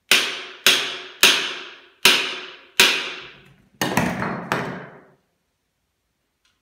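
Claw hammer knocking the front wheel fork out of a BabyJogger City Elite stroller frame: five sharp blows, each ringing briefly, then a quicker, heavier group of knocks about four seconds in as the fork comes free.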